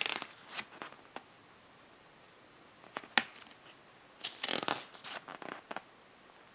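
Pages of a paper user manual being turned: a series of short papery flips and rustles with pauses between, the busiest stretch a little past halfway.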